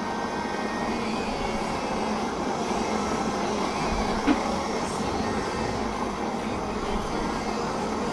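Jeweller's soldering torch flame hissing steadily as it heats a silver joint to melt the solder. A single brief click about four seconds in.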